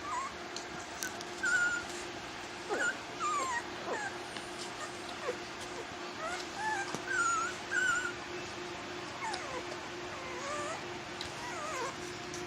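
A litter of puppies whimpering and squealing: many short, high, wavering cries, scattered and overlapping.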